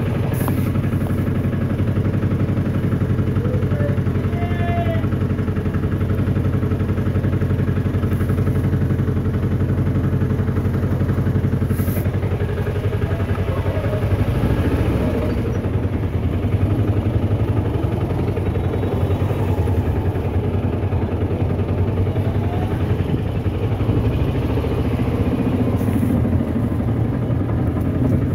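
Small engine of an auto-rickshaw running steadily, its low hum constant throughout, with faint street noise around it.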